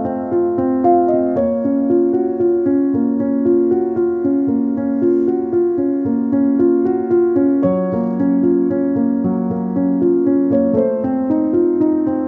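Background piano music, a gentle run of notes.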